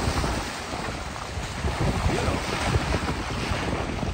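Strong wind buffeting the microphone in uneven gusts, over the wash of sea waves breaking on rocks.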